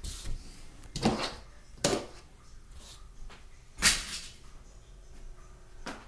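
Handling noises from picking up and setting down die-cast toy cars: five short knocks and rattles, the loudest about four seconds in.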